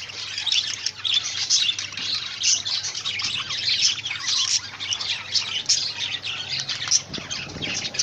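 A group of budgerigars chattering, a continuous dense stream of short high chirps and warbles.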